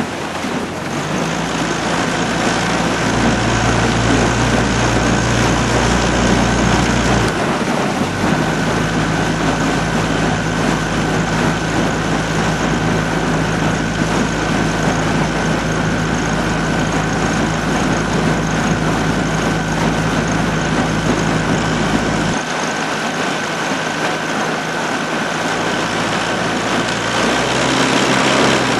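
Outboard motor of a coaching launch running steadily, a low engine hum that shifts in pitch about seven seconds in and again about twenty-two seconds in, with a thin steady whine above it.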